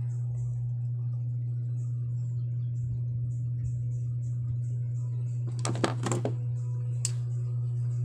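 A steady low hum with background music throughout. About five and a half seconds in comes a short clatter of several sharp clicks from tools and fan parts being handled, then a single click about a second later.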